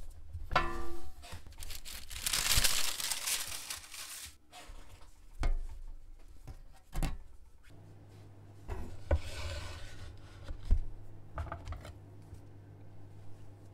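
Kitchen handling sounds from flat breads being worked on a hot pan with a gloved hand: a loud burst of hissing about two seconds in, then scattered knocks and rubbing. A steady low hum comes in about halfway through.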